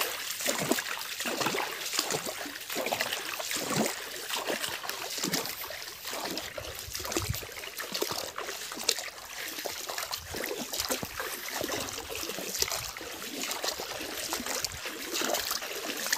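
Shallow forest stream trickling and babbling over its bed, an irregular, steady water sound.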